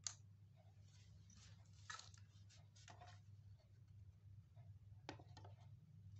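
Handling noise from a small homemade power-adapter board and its wires: a sharp click right at the start, then light scrapes, rustles and clicks as the board is picked up and set down on a car head unit's metal case. A faint steady low hum runs underneath.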